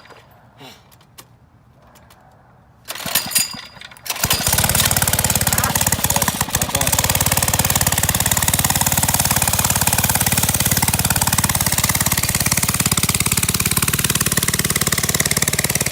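A 3.5 hp flathead Briggs & Stratton single-cylinder engine on a mini bike starts about four seconds in, after a few short rattling bursts. It then runs steadily and loudly with rapid, even firing pulses.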